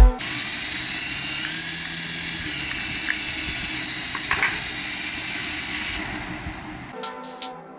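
Steady whir of a small electric motor in a toy remote-control vehicle, fading out near the end.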